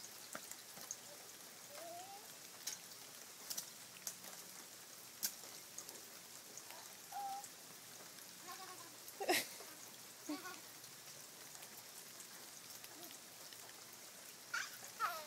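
Light rain falling, a faint steady patter with scattered sharp drop taps. A young child gives a few short, high vocal sounds, the clearest a falling one near the end. A single sharp loud knock or splash comes about nine seconds in.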